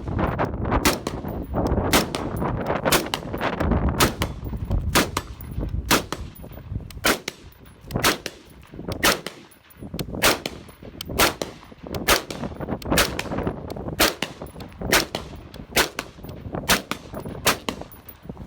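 Semi-automatic AR-15 rifle (M16A1/SP-1-style retro build with a C7 upper and 20-inch barrel) firing a steady string of shots, about two a second, each crack followed by a short echo.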